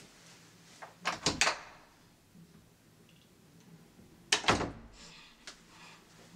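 A door being opened and shut: a quick cluster of clattering knocks about a second in, then a heavier double knock about four and a half seconds in as it closes.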